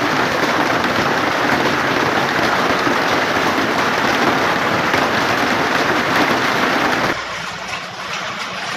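Hailstorm: hail and heavy rain pelting down, a loud, dense, steady rush of noise. About seven seconds in it cuts abruptly to a quieter hiss of falling hail.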